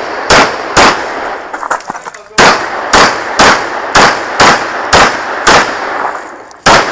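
Competition pistol fired rapidly on a USPSA stage, likely an Open-division gun: two quick shots, a pause of about a second and a half while the shooter moves, then a steady string of about nine shots roughly half a second apart, each with a short echo.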